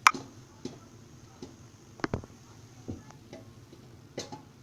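A series of light, sharp clicks and taps at uneven intervals, about half a second to a second apart; the first is the loudest.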